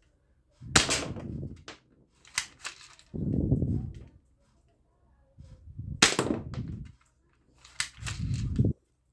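Electronic toy guns firing gunshot sound effects: four shots, each a sharp crack followed by about a second of rumble, with a few short sharp clicks between them.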